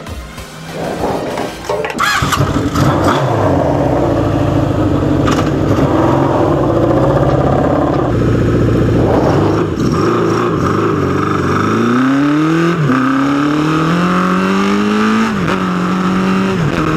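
1981 Honda CB750's air-cooled inline-four engine starts about two seconds in and idles. Later it revs up as the bike pulls away, with two upshifts where the pitch climbs and then drops, and it holds steady near the end.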